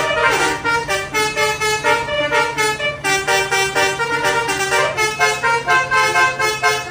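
Bus 'basuri' musical horn playing a quick melody of short, rapidly changing tooting notes, with a steady low hum underneath.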